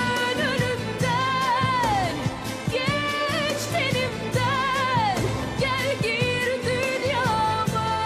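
A soundtrack song: a singer's melody with wavering, drawn-out held notes over a steady rhythmic beat.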